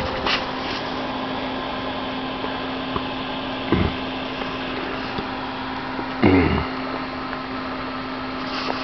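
Small 12-volt cooling fan of a linear amplifier running steadily with a constant low hum, with two brief bumps about four and six seconds in.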